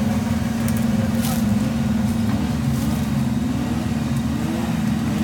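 Offroad 4x4 vehicle's engine running steadily at an even speed.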